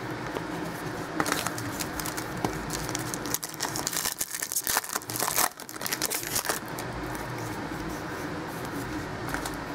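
A stack of 2012 Topps Platinum football cards being handled and slid past one another, with a run of short crinkling and scraping sounds through the middle.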